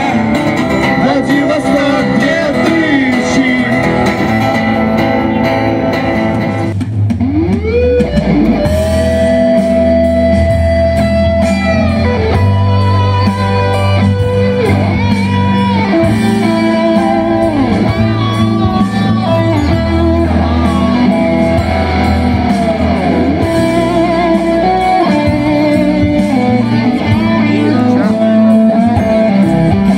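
A young man singing to an acoustic guitar through a small amplifier, then, about seven seconds in, an electric guitar played through portable speakers takes over, with long sustained notes bent up in pitch over a steady bass accompaniment.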